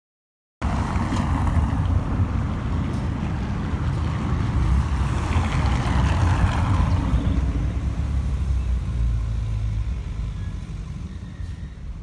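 Loud, steady low rumble with a hiss above it, cutting in abruptly about half a second in, swelling in the middle and easing off near the end.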